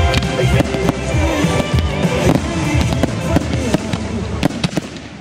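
Aerial fireworks shells bursting and crackling in quick succession over loud music with a heavy bass. The music fades away near the end while the bangs continue.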